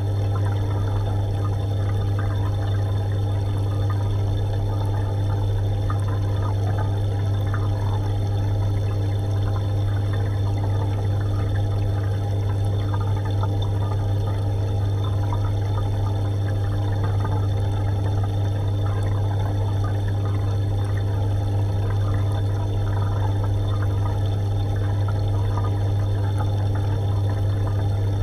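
Aquarium water pump running with a steady low hum, water trickling and bubbling into the tank.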